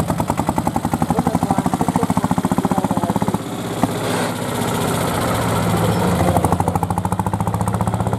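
Deutz D15's single-cylinder air-cooled diesel running hard under load in a tractor pull, a rapid, even chugging. About three and a half seconds in, the beat blurs into a rougher noise for a second or two, with one sharp knock, before the even chugging returns.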